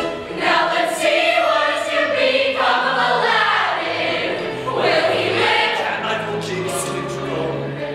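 Ensemble of young musical-theatre performers singing together over a recorded accompaniment, with a bass line of held notes underneath.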